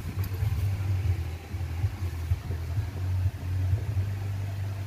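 A low, uneven rumble like a motor vehicle's engine running, with a faint click about a quarter of a second in.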